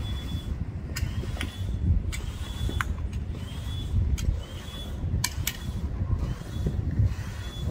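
Hand caulking gun being worked to lay adhesive on rubber gym floor tiles: irregular sharp clicks from the trigger, several followed by a short rising squeak. A steady low rumble runs underneath.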